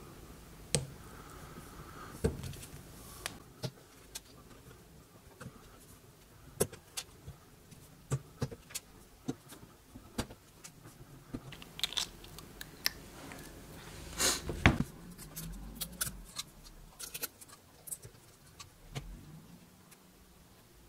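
Needle-nose pliers pulling cured urethane vents and sprue out of a silicone split mold: an irregular run of sharp clicks and small snaps from the metal jaws and the plastic, with soft rubbing and handling of the silicone mold between them. The loudest click comes about two-thirds of the way through.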